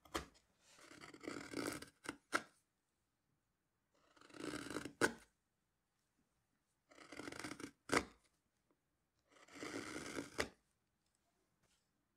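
Carving gouge slicing facets into the tulip tree wood of a hand-carved bowl: about five cuts a few seconds apart, each a scraping slice of about a second that ends in a sharp click.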